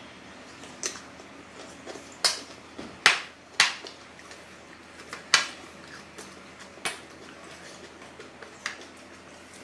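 Eating utensils clinking against dishes during a meal: about seven sharp, irregularly spaced clinks.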